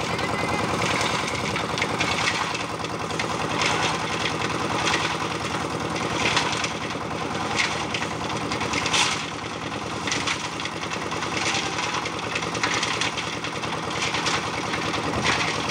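A towed concrete mixer's engine running steadily under load while its drum turns, with a noisy swish of the mix tumbling in the drum repeating about once a second.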